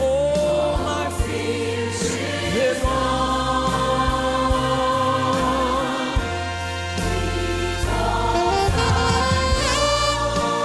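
Live gospel worship music: a man sings a held note as the choir of backing singers sings long sustained lines over a band with bass.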